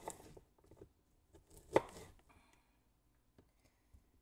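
Kitchen knife chopping zucchini on a wooden cutting board: one sharp knock of the blade on the board a little under two seconds in, with a few lighter taps around it.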